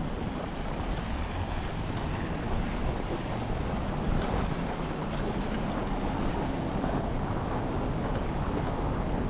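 Steady low rush of wind on the microphone, with city street traffic underneath.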